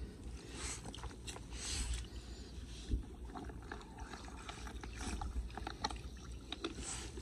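A hand sweeping and scooping through shallow floodwater over a clogged drain: irregular splashing and swishing of water, with scattered crackles and clicks of wet leaves and twigs being pulled away, over a steady low rumble.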